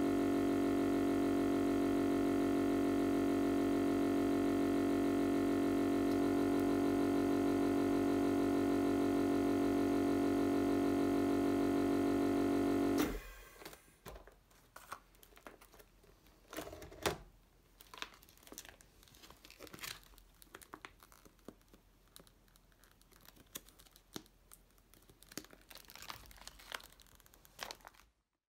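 Reber Professional 30 vacuum sealer's pump running with a steady hum while evacuating a bag, stopping suddenly about thirteen seconds in. After it, plastic vacuum bags crinkle and rustle as they are handled.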